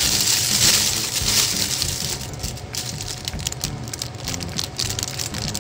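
Kitchen knife peeling an apple in one continuous strip: a run of small crunching clicks as the blade cuts under the skin. A louder hissing noise fills the first second or so.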